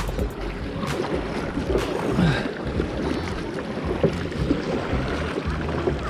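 Kayak paddle strokes splashing and pulling through river water, hard steady paddling against the current, with wind rumbling on the microphone.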